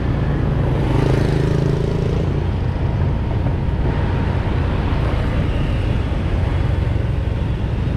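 Steady road noise from riding a motor scooter through city traffic: the scooter's engine hum and wind, with cars and other scooters around. An engine is briefly louder about a second in.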